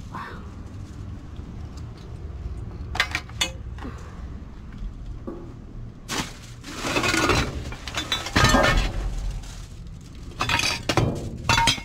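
Rubbish being rummaged through inside a dumpster: wire clothes hangers and glass and ceramic odds and ends clinking and clattering against each other. There are a couple of sharp clinks about three seconds in, then longer stretches of clattering from about six seconds on and again near the end.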